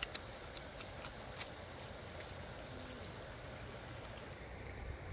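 A person chewing food close up, with soft mouth clicks and smacks, most of them in the first second and a half, over a steady outdoor rush.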